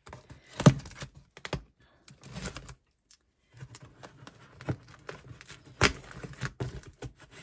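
Scissors slicing and snipping through packing tape on a cardboard shipping box, with irregular clicks, scrapes and taps of the cardboard being handled. Two sharper clicks stand out, one under a second in and one near six seconds.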